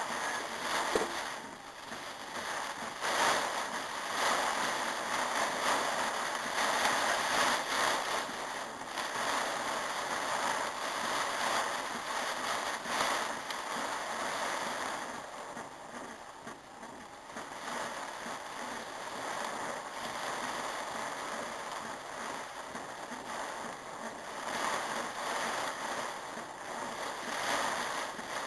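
Heavy rain pouring down in a storm: a dense hiss that swells and eases in gusts, dropping off briefly just past the middle.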